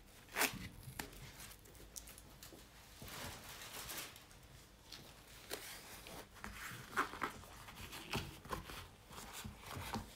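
Sticky tape being peeled and torn off packaging by hand: irregular rustling and crackling, with the sharpest snap about half a second in.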